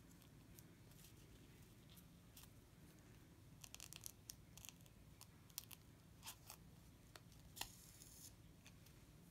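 Near silence with faint, scattered small clicks and a short soft hiss about eight seconds in: a needle, a thimble and thread being worked through a felt backing during hand bead embroidery.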